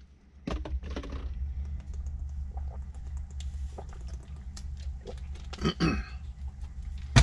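Scattered small clicks and handling noises of objects on a workbench, with a denser plastic crinkle near the end as a plastic water bottle is handled and its cap twisted, over a steady low hum. A sharp click at the very end is the loudest sound.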